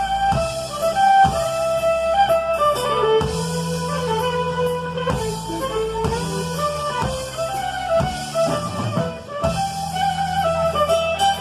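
Instrumental background music with a drum-kit beat under a pitched melody line.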